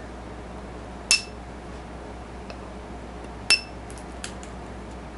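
12 V battery spot welder kit firing onto metal strip: two sharp snaps, each with a brief ringing tone, about a second in and again near the middle, with fainter ticks between. The welds are not taking hold.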